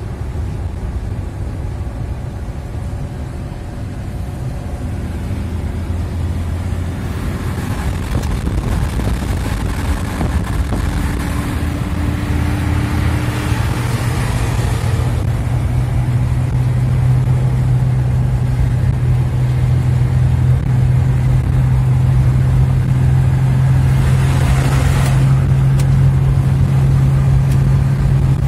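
Car driving on a wet road, heard from inside the cabin: steady engine and tyre noise, with the engine drone growing louder from about halfway. Twice a swelling hiss of passing traffic on the wet asphalt.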